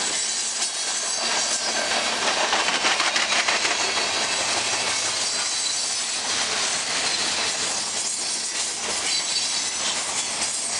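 Freight cars (black tank cars, then covered hoppers) rolling past at speed, their steel wheels clicking over the rail joints under a steady rolling noise.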